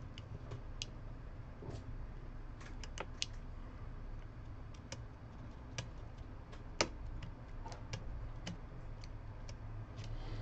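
Irregular light clicks and ticks of a small tool and parts being handled inside an open iPhone 7, with one sharper click about two-thirds of the way through, over a low steady hum.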